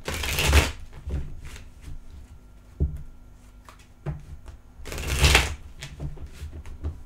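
A deck of tarot cards being shuffled by hand. There are two longer rushes of cards sliding and flicking together, at the start and about five seconds in, with short taps and soft knocks of the cards between.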